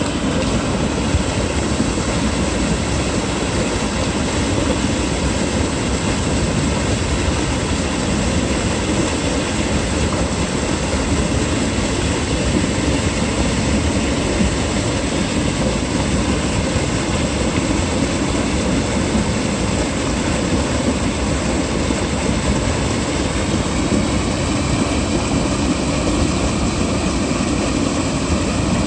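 Water gushing from a pipe outlet into a concrete irrigation channel: a loud, steady rushing and churning.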